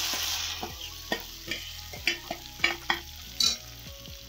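Mashed boiled potatoes sizzling in hot mustard oil in a steel kadhai, the hiss dying down about half a second in. Then a steel ladle scrapes and knocks against the pan roughly every half second as the potatoes are stirred and fried.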